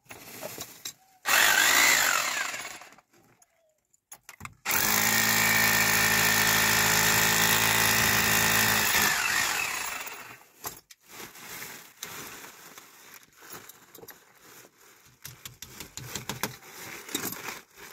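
Power drill boring into a plastered wall: a short burst about a second in, then a longer steady run of about five seconds that winds down, followed by light clicks and knocks of handling.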